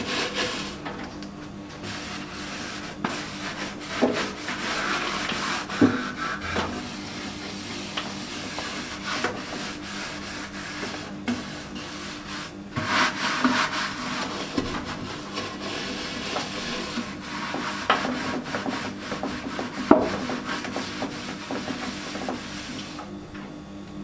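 Scouring sponge scrubbing the inside of a microwave oven in uneven strokes, rubbing a baking-soda cleaning paste over the walls and floor, with a few light knocks.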